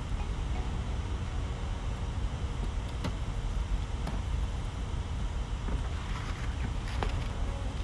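Steady low rumble with a few light clicks of small screws and a screwdriver being handled, about three, four and seven seconds in.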